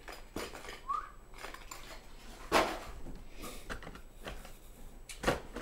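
Hands rummaging in a cardboard box of tackle packages: scattered knocks and light rustles of packaging being handled, the loudest knock about two and a half seconds in.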